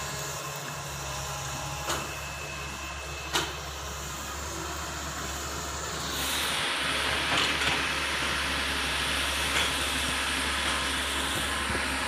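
Tata Hitachi tracked excavator running with a steady low diesel engine hum, with a couple of sharp clicks early on. About halfway through, the sound grows louder and hissier while the arm swings and the bucket digs into the soil.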